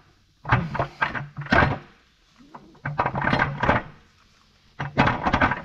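Steel transmission gears in an Eaton RTLO16913A case clicking and clattering in several short bursts as a shaft is turned by hand to line up its timing mark.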